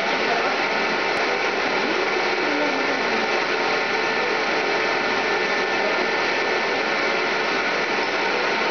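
Ecostar ECO2GC1A burner running on bottled gas: a steady, even rush of its blower fan and flame that holds unchanged throughout.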